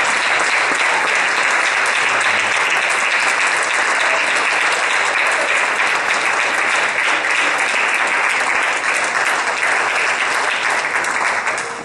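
Church congregation applauding, a steady, dense clapping that dies away right at the end.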